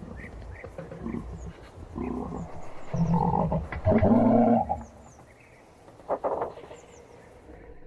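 A large animal's low, rough calls, several in a row, the loudest and longest about three to four and a half seconds in, with a short one near six seconds; faint high chirps sound in the background.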